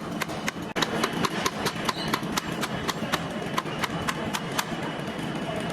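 A rapid, uneven run of sharp knocks, about four or five a second, over a steady background noise with a faint high steady tone.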